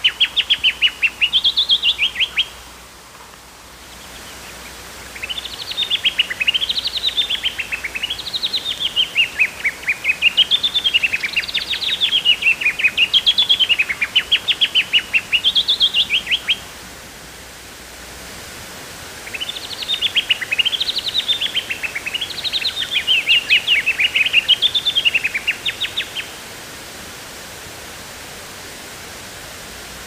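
Black-throated honeyeater singing: rapid trilled notes grouped in repeated phrases that rise and fall in pitch, in three bursts with short pauses between them. The last burst ends a little past the middle, leaving only faint steady background hiss.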